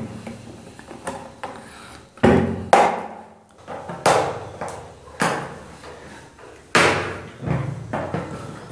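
Sharp plastic clicks and knocks, about half a dozen loud ones with smaller taps between, as the side locks of a plastic Kerovit flush cistern's lid are pressed and snapped back into place.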